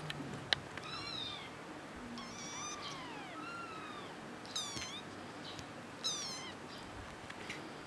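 Very young kittens mewing: several high, thin mews that rise and fall in pitch, some short and sharp. A sharp click about half a second in.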